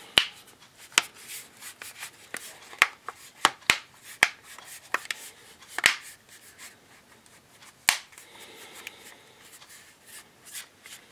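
Plastic snap-fit clips of a tablet's back cover clicking into place as the cover is pressed around its edges: a string of sharp, irregular clicks with faint rubbing and handling of the plastic between them, the clicks thinning out after about eight seconds.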